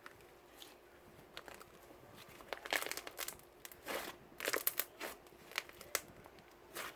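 Irregular crinkling and rustling in short, uneven bursts, starting about a third of the way in, over a faint steady hum.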